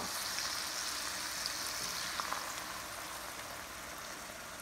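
Onions and meatballs frying in hot oil in an enamelled cast-iron braiser, a steady sizzle that slowly fades as tomato sauce is poured in over them.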